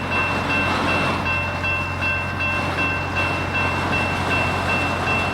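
Union Pacific locomotives working in a rail yard: a steady low engine drone under noise, with a short high-pitched tone repeating about twice a second.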